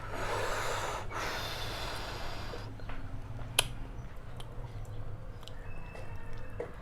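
A man breathing out heavily twice, each breath a second or more long, then a single sharp click a little past the middle, with faint small ticks and a low steady hum underneath.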